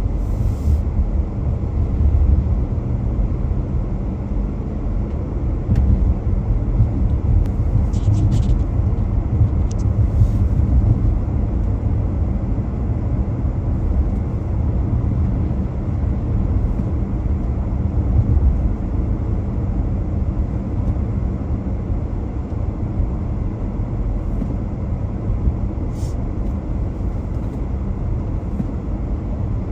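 Steady low rumble of a car driving, the engine and tyre noise running evenly, with a few faint clicks.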